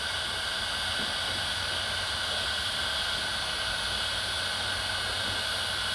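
Electric heat gun blowing steadily, heating a wire connection on the wiring harness.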